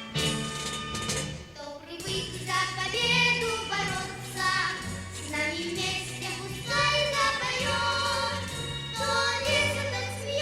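Recorded dance music with a steady bass line and singing voices, played for a stage dance routine.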